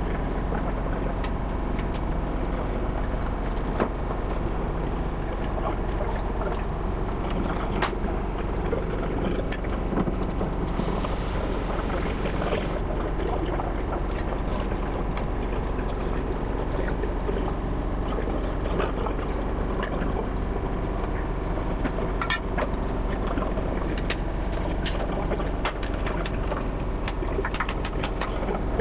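Steady low hum of a locomotive workshop, with scattered metallic knocks and clanks as steel locomotive driving wheelsets are pushed by hand along the rails. A brief hiss comes about eleven seconds in.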